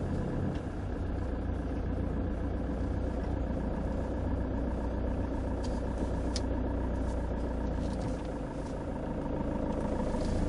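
Car engine running at low speed with tyre and road noise, heard from inside the cabin as the car drives off slowly, with one light click about six seconds in.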